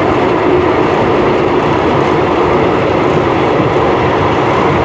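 Passenger train running along the line, a steady loud rumble and rattle of wheels and carriage heard from on board.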